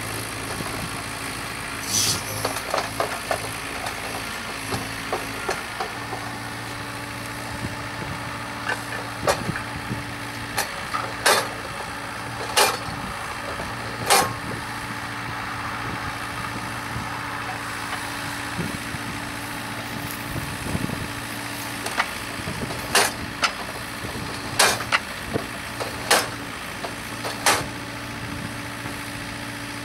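Diesel engine of a Takeuchi mini excavator running steadily, its hum firming up about six seconds in. Over it come sharp strikes from the hammer of the Vector Model 8 post driver driving a wooden fence post: one early on, then two runs of four about a second and a half apart.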